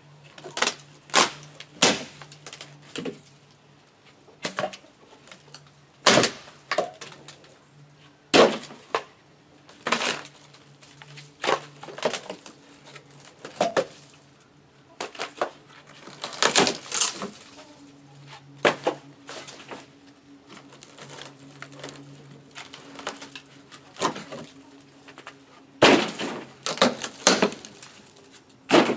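Irregular sharp knocks and clatters of work on wooden porch decking, one every second or two with quick clusters of blows about a third and near the end of the way through.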